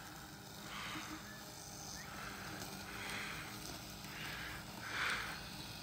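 Luba 1000 four-wheel-drive robotic lawn mower working its way out of a deep lawn rut: a faint low hum with several soft swells of hiss.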